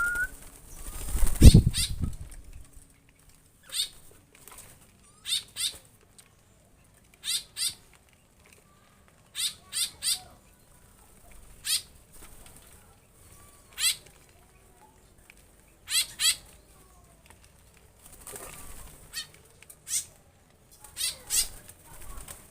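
Small songbirds in an aviary fluttering and moving about, with short, sharp high sounds every couple of seconds, often in pairs. A louder rustle comes about a second and a half in.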